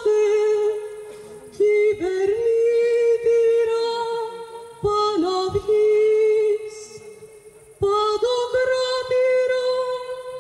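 A woman singing slow, sustained phrases, holding long notes around one pitch with small ornamental turns. Each phrase starts strongly and fades away, and new phrases begin about one and a half, five and eight seconds in.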